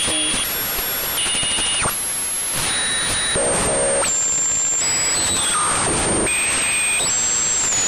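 Synthesized sci-fi radio interference: an odd radio-tuning sound of static hiss with thin whistling tones that jump abruptly to new pitches every second or so, and a few short falling sweeps.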